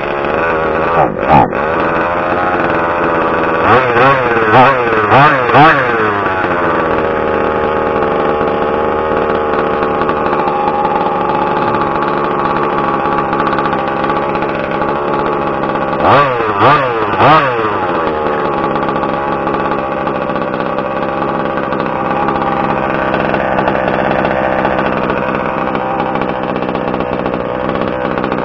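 Small two-stroke gas engine of a 1/5-scale RC truck idling steadily, with a quick run of four throttle blips a few seconds in and three more about halfway through.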